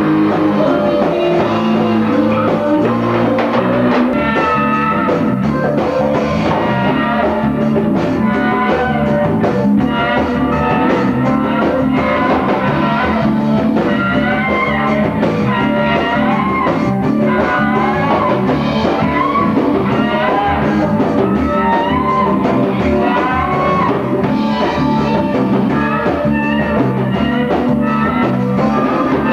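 Live rock band playing: electric guitar taking a lead line with bending notes over bass, drum kit and congas.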